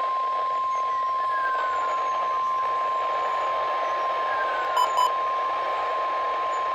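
NOAA Weather Radio 1050 Hz warning alarm tone: one long steady high tone over radio hiss, the signal that a warning broadcast follows, here a severe thunderstorm warning. Two short beeps sound over it about five seconds in.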